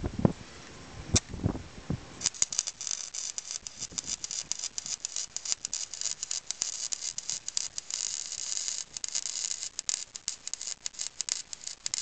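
Wire-feed arc welder crackling and sizzling steadily as a bead is laid on a cracked steel mini bike frame, starting about two seconds in after a couple of low knocks.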